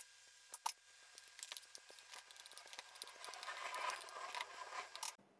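A metal spoon spreading thick custard over biscuits in an aluminium cake pan. There are a couple of sharp clicks about half a second in, then faint ticking and soft, wet scraping that grows toward the end and stops abruptly.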